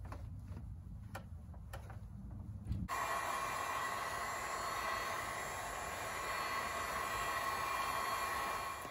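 Handheld heat gun running: a steady blower whoosh with a whine, starting abruptly about three seconds in. Before that, a low rumble with a few faint clicks.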